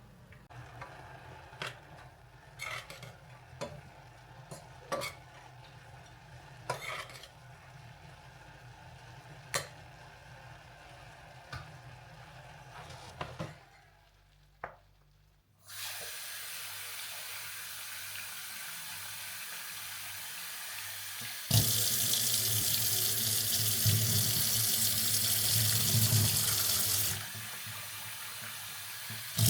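A few light clicks and knocks of kitchen work, then, about halfway through, a kitchen tap starts running into the sink. The flow gets much stronger for about five seconds, then eases back to a gentler stream.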